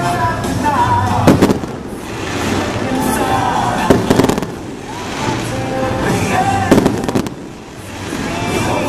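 Aerial fireworks exploding in a harbour display: three sharp bangs with echo, about two and a half seconds apart, the last a quick cluster of several reports, over a continuous backdrop of music.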